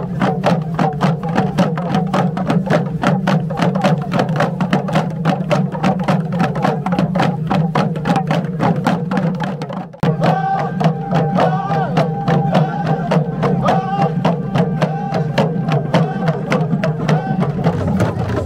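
Kundu hand drums beaten together in a fast, even beat, with men's voices chanting along; after a cut about halfway through, a sung line rises more clearly over the drumming.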